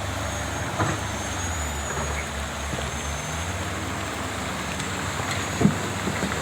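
Excavator diesel engines running steadily, with two sharp knocks, one about a second in and a louder one near the end.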